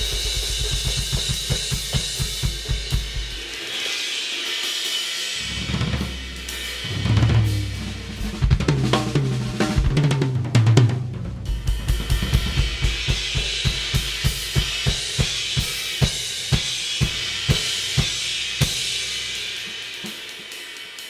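A drum kit with Istanbul Mehmet Nostalgia cymbals playing a steady groove of kick drum, snare and a dense wash of hi-hat and cymbals. A busier stretch in the middle has lower held drum tones before the even groove returns.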